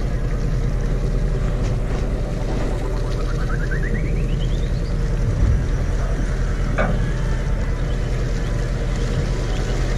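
Steady low hum of the party boat's engine running, with wind on the microphone. A short rising series of ticks comes a few seconds in.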